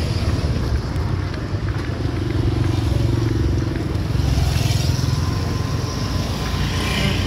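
Motor scooters running along a street: a steady low engine hum and rumble, with a scooter's engine note rising in the middle.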